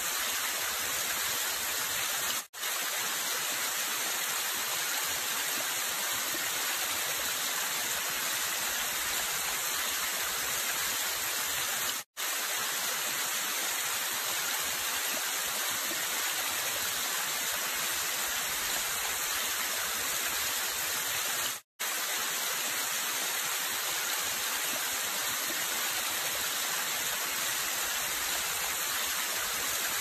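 Waterfall spilling in thin sheets down stepped rock ledges: a steady, bright hiss of falling water. The sound cuts out for a split second three times.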